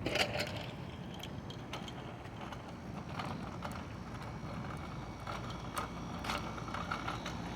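An outdoor air-conditioner condensing unit running with a steady low hum, with scattered light clicks and ticks over it.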